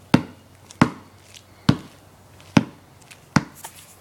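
Basketball dribbled on a concrete driveway: five sharp bounces, a little less than a second apart.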